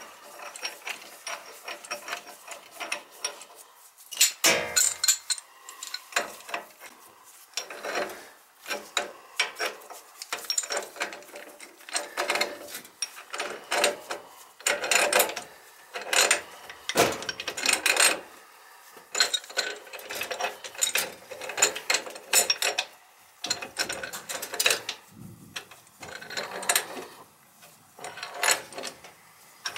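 Metal threads clicking and scraping as a replacement gas valve is turned by hand onto the boiler's threaded gas pipe, in a series of short irregular strokes.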